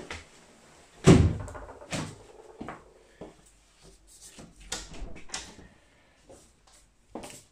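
Wooden wardrobe door knocking shut about a second in, with a second sharp knock about a second later, then lighter clicks and bumps.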